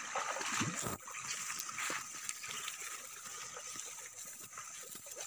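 River current flowing: a steady watery rush with a few small splashes in the first couple of seconds.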